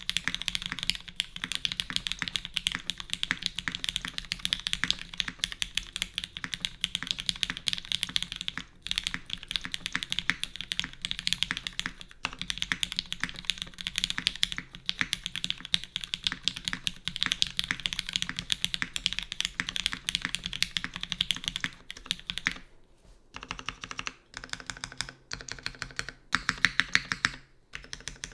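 Steady, fast typing on a custom tenkeyless mechanical keyboard with lubed and filmed Cherry MX Black linear switches in a full aluminium plate, no foam dampening, and GMK keycaps. About three quarters of the way in, the typing breaks into short bursts with brief pauses between them.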